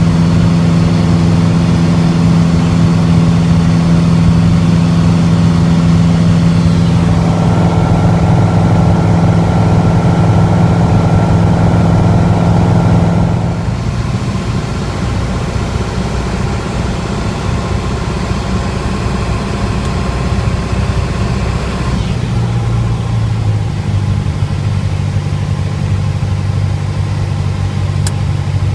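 Piper PA-28's single piston engine and propeller droning steadily, heard from inside the cabin. The drone drops in level and tone about halfway through, then its low hum strengthens again later on.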